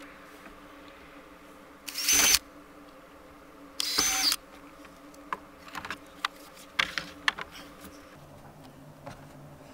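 Cordless drill run in two short trigger bursts about two seconds apart, boring holes through a plastic MaxTrax recovery board. A scatter of light clicks and knocks follows as the board and drill are handled.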